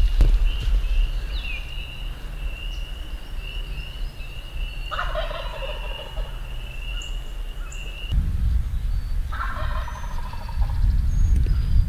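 Wild turkey gobbling twice, about four seconds apart, with a steady high trill behind it.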